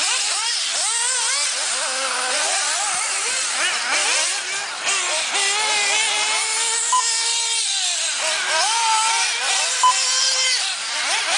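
Several 1/8-scale nitro RC buggy engines racing, their high-pitched whine rising and falling as they accelerate and brake around the track. Two short beeps sound about seven and ten seconds in.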